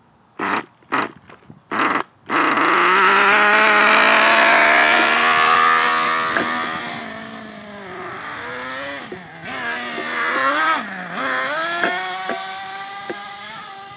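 Traxxas T-Maxx RC truck's small nitro engine sputtering in four short bursts, then catching about two seconds in and running loudly as the truck drives off. Its pitch dips and rises twice as the throttle changes, and it grows fainter near the end. It is a hard-starting engine that the owner is not sure runs well.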